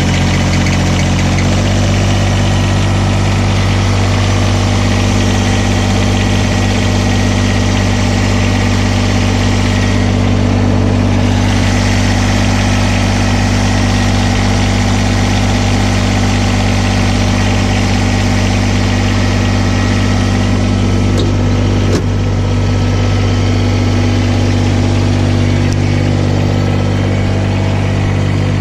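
Kubota BX1860's three-cylinder diesel engine idling steadily while it warms up. Its note shifts slightly about a second and a half in, and there is a single sharp click about 22 seconds in.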